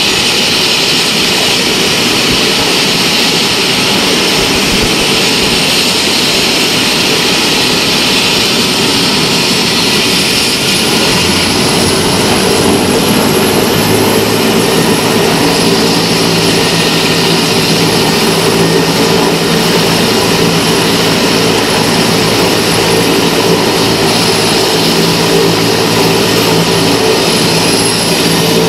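Mi-17-type twin-turbine military helicopter running on the ground with its rotor turning: a loud steady turbine whine and rotor noise. About halfway through, steady low hum tones come in and hold as the engines and rotor settle at a higher speed ahead of takeoff.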